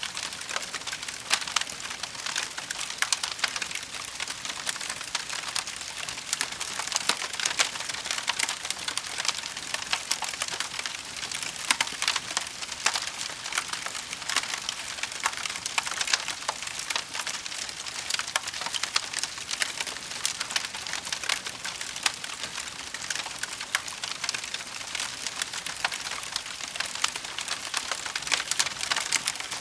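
Wood fire crackling in a fireplace: a steady hiss dotted with frequent sharp pops and snaps, some much louder than others.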